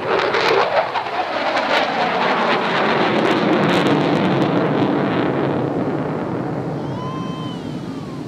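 F-16 Fighting Falcon jet passing close overhead: the jet roar swells in sharply with ragged crackling through the first few seconds, then settles to a steady roar that slowly fades as the jet climbs away.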